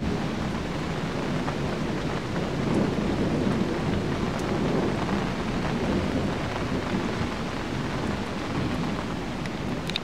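Steady rain with rolling thunder: a low rumble swells from about three seconds in and slowly fades.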